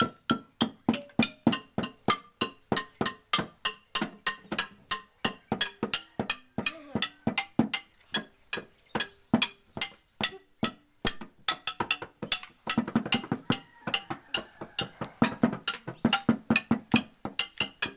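Percussion-led music with a fast, steady beat of sharp strikes, about four a second, over short pitched notes.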